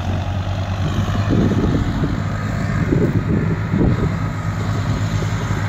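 Farmtrac tractor diesel engine idling steadily, with a few uneven louder stretches in the middle.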